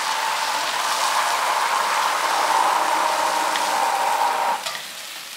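Chicken pieces sizzling and bubbling in a hot pan on a gas burner just after a splash of water was added: a dense, steady hiss with a steady high tone in it, which drops away suddenly near the end.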